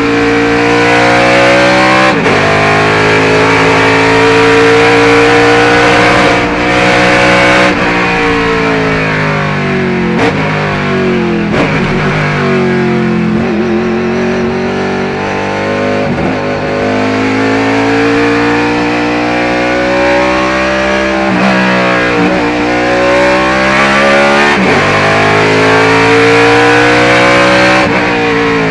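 1976 Chevy IMSA Monza race car's engine heard from inside the cockpit on a flying qualifying lap. It revs up through the gears, the pitch climbing and then dropping sharply at each shift. Several times it falls away more slowly as the driver lifts for a corner, then climbs again.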